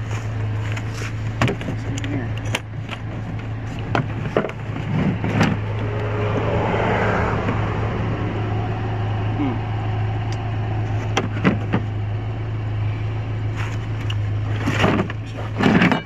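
Steady low hum of an idling vehicle engine, with sharp clicks and knocks of a hard plastic tool case being unlatched, opened and handled.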